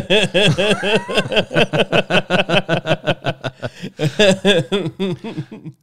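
Two men laughing together in quick, repeated chuckles that fade near the end.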